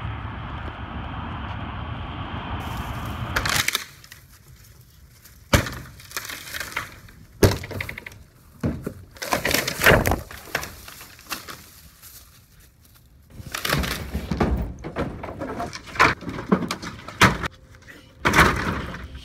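Wooden fence boards being kicked and broken: a dozen or so sharp cracks and splintering impacts at irregular intervals, some in quick clusters. They follow a few seconds of steady rushing noise.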